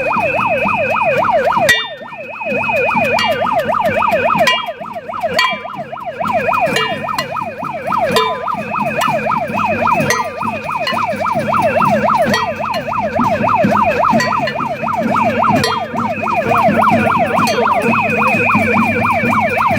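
Electronic siren warbling rapidly up and down, about four sweeps a second and unbroken. It is mixed with a steady high tone and scattered sharp bangs, the noise of a crowd of protesters.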